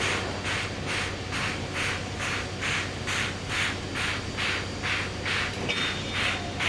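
Baldwin steam locomotive No. 26 working under steam, its exhaust chuffing in an even rhythm of about two to three beats a second. A brief thin high tone sounds near the end.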